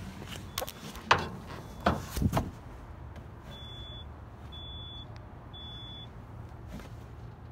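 A few sharp knocks and bangs, like a vehicle door being worked, then a high electronic warning beep repeating about once a second over a low steady hum.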